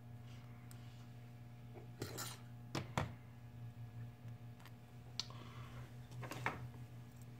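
Scattered small clicks and brief scrapes from handling small phone parts and tools during reassembly, the sharpest click about three seconds in, over a steady low hum.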